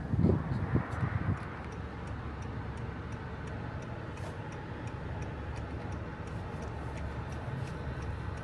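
Steady low hum of a vehicle under way, heard from inside the cab, with a faint, evenly spaced ticking throughout.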